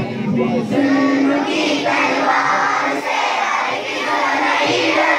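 A large group of schoolchildren singing a tarana together, many voices in unison.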